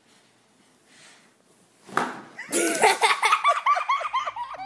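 Faint room tone, then a sudden loud rushing burst about two seconds in, followed by people laughing hard in quick repeated bursts.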